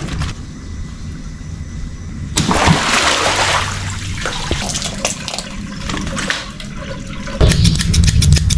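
A big water-filled stretchy toy bursts a couple of seconds in, and its water gushes out with a sudden rush, then splashes and runs across the mat and concrete floor. Near the end a louder low rumble takes over.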